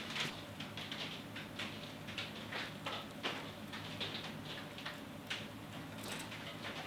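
Faint, irregular light clicks and taps of metal parts and tools being handled.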